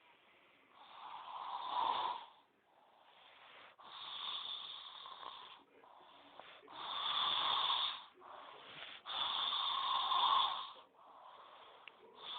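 A sleeping person snoring: four long snores, each about a second and a half to two seconds, coming roughly every three seconds. Quieter breaths sound between them.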